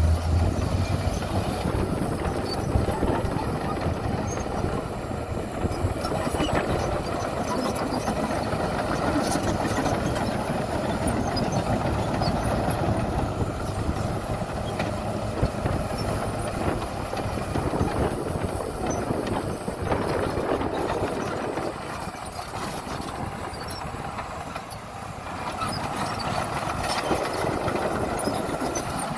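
Heavy diesel earthmoving machinery, a bulldozer and dump trucks, running and working soil, with scattered clanks over a steady engine drone that eases off for a few seconds past the middle.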